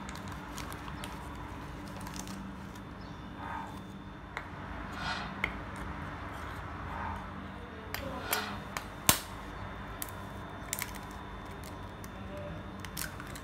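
A metal spoon scraping through flour and clicking against a ceramic plate during mixing, with several sharp clicks of cutlery and crockery, the loudest about nine seconds in. A steady low hum runs underneath.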